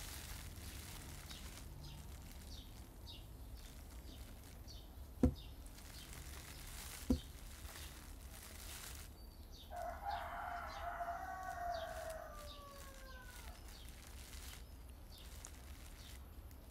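A long animal call of about three and a half seconds, starting about ten seconds in and sliding down in pitch at its end. Two short dull knocks come a couple of seconds apart before it, over faint outdoor background.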